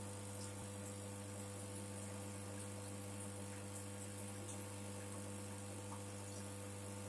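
Steady low electrical hum that does not change.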